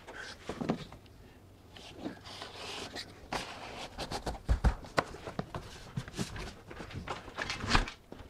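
Exterior door being swung open and shut over its threshold to test the fit of a freshly trimmed finned door sweep: the sweep brushes and scrapes along the sill, with scattered knocks and footsteps, and a couple of dull thuds a little past the middle.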